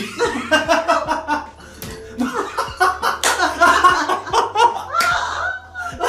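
A person laughing loudly, with a few sharp smacks among the laughter.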